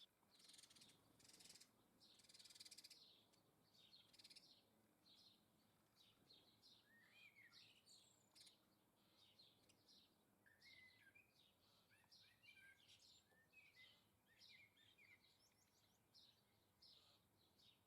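Faint garden songbirds chirping and twittering, many short high notes and quick glides overlapping throughout, with a few brief rustling bursts in the first few seconds.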